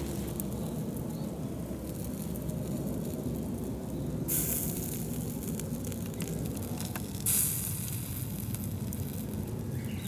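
Hamaguri (Japanese hard clams) grilling in their half-shells in butter and soy sauce over a wood campfire: a steady low sizzle with scattered small pops. There are two brief louder hisses, about four seconds in and about seven seconds in, the second the loudest.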